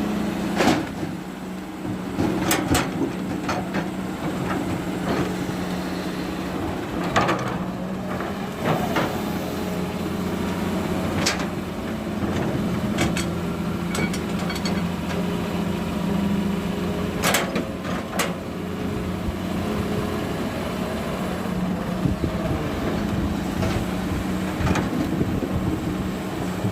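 Diesel engine of a working excavator running steadily, with a handful of sharp knocks and clanks scattered through.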